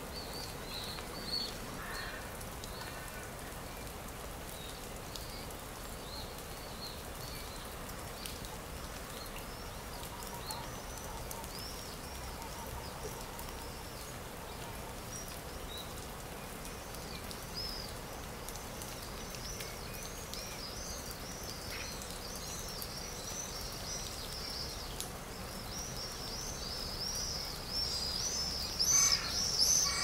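Forest ambience: small birds chirping in short, repeated high calls over a low steady background hiss, the calls growing busier and louder toward the end.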